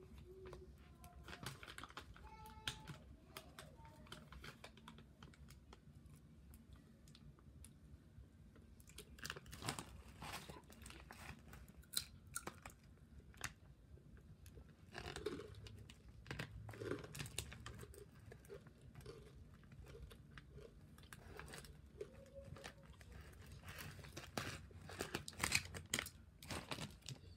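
Faint crunching and chewing of rolled tortilla chips (Takis), in scattered irregular crunches, with a foil snack bag crinkling now and then.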